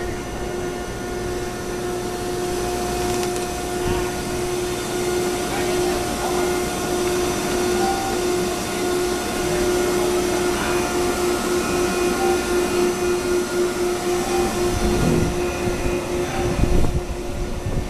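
Heavy machinery running steadily with a constant drone and hum, with a few louder knocks near the end.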